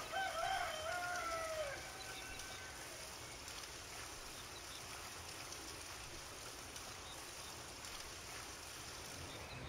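A rooster crows once, a wavering call of nearly two seconds at the start. It is followed by a steady soft hiss of farmyard ambience with a few faint bird chirps.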